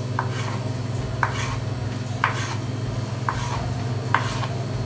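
Kitchen knife chopping boiled egg whites on a wooden cutting board: a sharp knock of the blade on the board about once a second, five in all, over a steady low hum.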